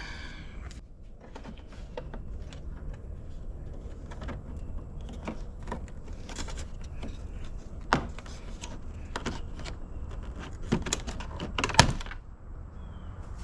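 Old upper headlight lens cover strip on a BMW E46 being pried and pulled off, breaking away in bits and pieces with scattered clicks and cracks. The sharpest snaps come about eight seconds in and again near the end.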